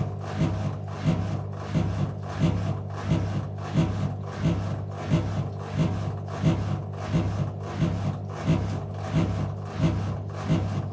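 Whirlpool 5 kg front-loading washing machine in its final spin: a steady motor hum with a regular thump about twice a second, the knocking of a drum load that is badly unbalanced.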